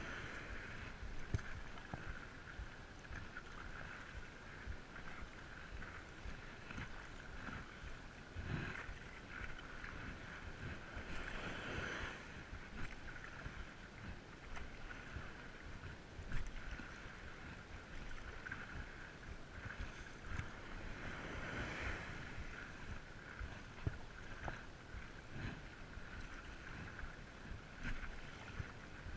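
Water swishing and splashing around a stand-up paddleboard as it is paddled, with a few louder swells of splashing.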